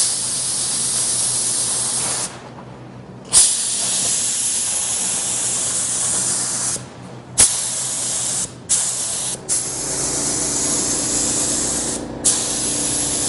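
HVLP gravity-feed spray gun spraying silver metallic base coat: a loud hiss of air and paint that starts and stops sharply as the trigger is pulled and released, in about six passes of one to three seconds with short breaks between them.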